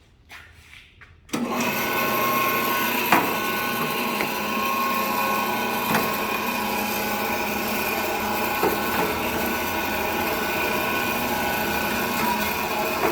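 LEM electric meat band saw switched on about a second in, then running steadily with an even motor hum and whine, with a few light ticks.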